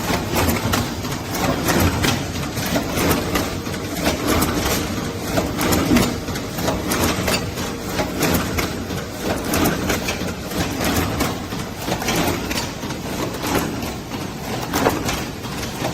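Automatic carton packing machine (cartoner) running, a steady mechanical clatter with frequent irregular clicks and knocks.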